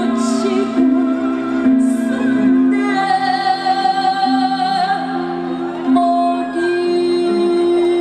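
A woman sings in Korean traditional (gugak) style into a microphone over instrumental accompaniment, holding long notes that waver in vibrato.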